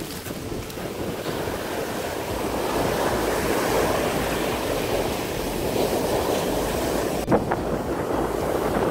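Surf breaking and washing up a pebble beach, swelling and easing, with wind on the microphone. A brief knock about seven seconds in.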